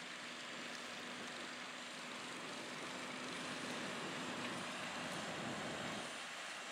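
New Holland T8.390 tractor's diesel engine running steadily under load while pulling a 24-row Kinze 3700 corn planter, heard as a distant, even hum. It grows a little louder past the middle and drops back shortly before the end.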